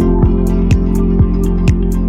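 Background music with a steady beat, about two low drum beats a second under sustained notes and light ticking percussion.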